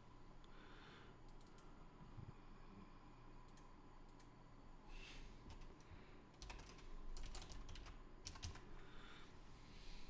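Faint typing on a computer keyboard: a few scattered keystrokes, then a quick run of them about two-thirds of the way in.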